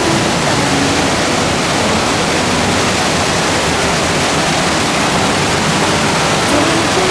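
Waterfall: water pouring and crashing in a loud, steady roar of noise.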